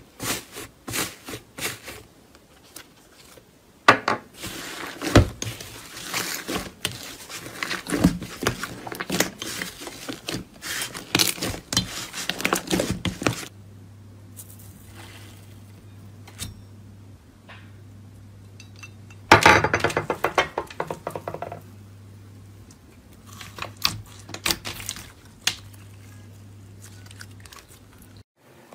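Slime being squeezed and poked by hand, giving a run of sticky clicks, pops and crackles. A steady low hum sits under the second half.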